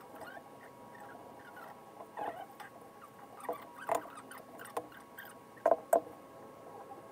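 Plywood panels being shuffled and set down on a wooden workbench: a few light knocks and taps, the two loudest close together about six seconds in.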